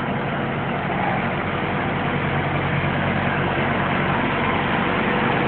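Trailer refrigeration unit (reefer) running, its small diesel engine giving a steady, unbroken drone with a low hum.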